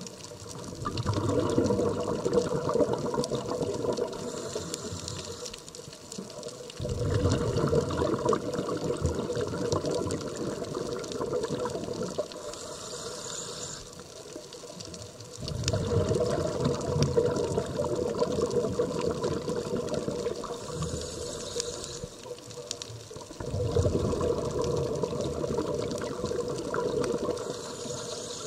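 A scuba diver breathing through a regulator underwater: exhaled bubbles rush and gurgle in four long bursts, one every seven or eight seconds, with quieter pauses between for the inhalations.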